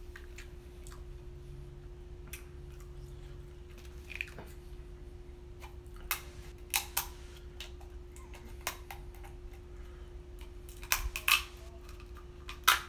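Scissors snipping through a crab leg's shell: about half a dozen sharp, short cracking snips in the second half, the loudest near the end.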